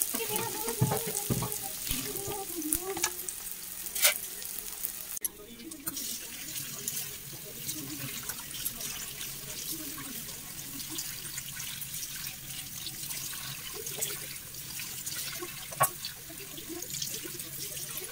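For the first few seconds, chopped onion and garlic sizzle gently in oil in a wok on low heat; then tap water runs steadily into a steel colander of moringa leaves in a steel sink while a hand turns the leaves, with a few sharp clicks against the metal.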